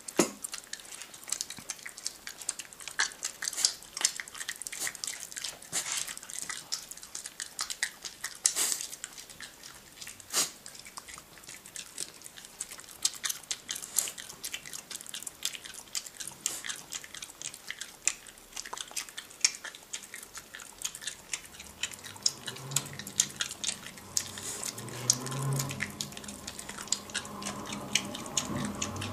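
A small terrier chewing with its mouth opening and closing: a long, irregular run of wet smacking and clicking jaw sounds, with a few louder smacks.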